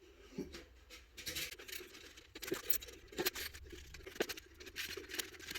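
Light, scattered clicks, taps and scrapes of aluminum camping-table parts being handled and fitted together.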